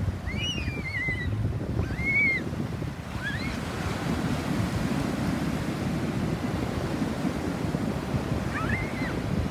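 Pacific Ocean waves washing with a steady rush, with some wind. Over it come several short, high calls that rise and fall in pitch: a few in the first three seconds and a couple more near the end.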